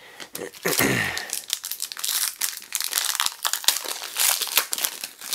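Wrapper of a 2015-16 Panini Donruss basketball card pack crinkling and tearing as it is handled and ripped open: a dense run of crackles.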